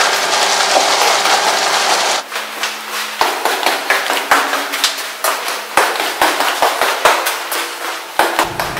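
A dense, even hiss for about two seconds, then a run of irregular sharp clicks and knocks, several a second.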